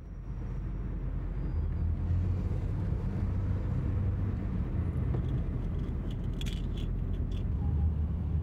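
Steady low rumble of motor vehicle noise, with a few faint clicks about six to seven seconds in.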